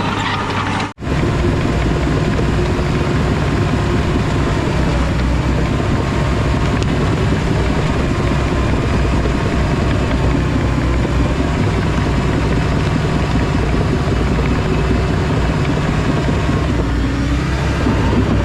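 Diesel engine of a heavy construction machine running steadily, with a brief dropout about a second in.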